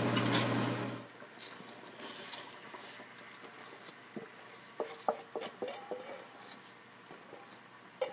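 A hot cooking pot hisses and sizzles as chicken broth is poured in over the browned onions and spices; the sound cuts off suddenly about a second in. After that there are only faint, scattered small pops and clicks.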